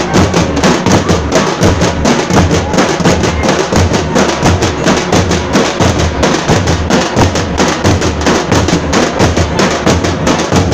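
A troupe of folk drums played together, loud, in a fast, steady, driving rhythm of many strokes a second.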